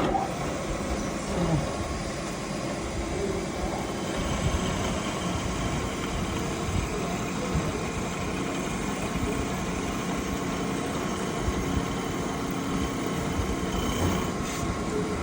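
Metalworking machine running steadily, with an even hum and a few held tones.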